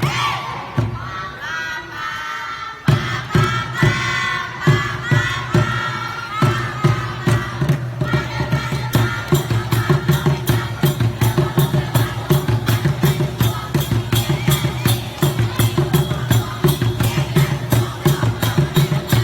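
Music with a fast, steady beat, with a group of voices chanting and cheering over it, most plainly in the first half.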